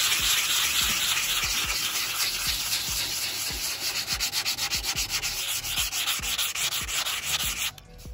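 Medium-grit sandpaper rubbed by hand over the boards of a wooden tabletop in quick back-and-forth strokes, stopping abruptly near the end.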